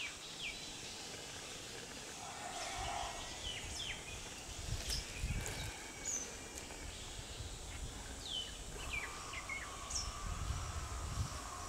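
Outdoor natural ambience of birds chirping: short, quick downward chirps scattered throughout, over a faint insect buzz. Occasional low rumbles sit underneath.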